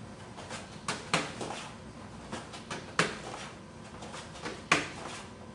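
About four sharp slaps of strikes and parries landing on arms and a padded focus mitt in a sparring drill. The last one, near the end, is the loudest.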